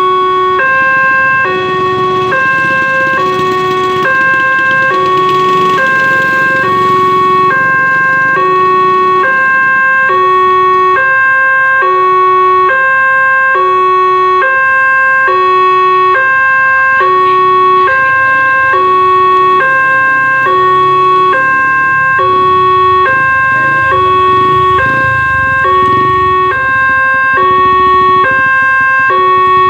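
Railway level-crossing warning alarm from the horn loudspeaker on the crossing mast: two electronic tones alternating evenly, about one pair every second and three quarters, signalling an approaching train while the barrier comes down.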